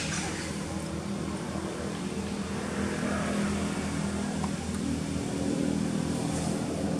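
Steady low hum of a running engine, holding an even pitch.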